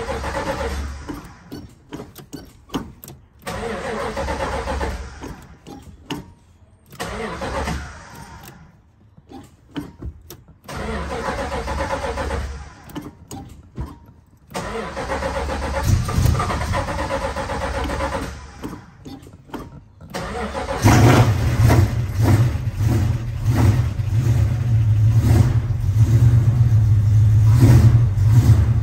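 Old Chrysler Valiant being cold-started: the starter cranks the engine in several bursts with short pauses between them. About three-quarters of the way through, the engine catches and keeps running, its level rising and falling as the gas pedal is pumped.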